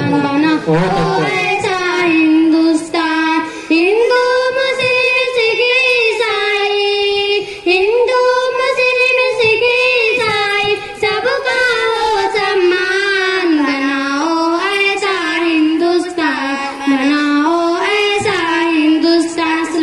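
Two girls singing a patriotic Urdu nazm into microphones over a PA, with long held, gliding notes.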